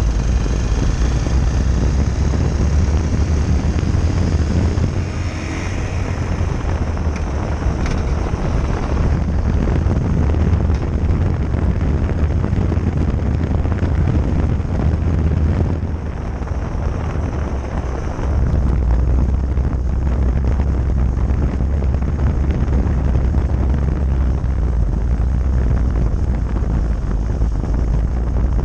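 Wind buffeting a camera mounted low on a moving motorcycle, with a heavy steady rumble and road and tyre noise from riding on asphalt. It eases briefly twice, about a fifth of the way in and a little past the middle.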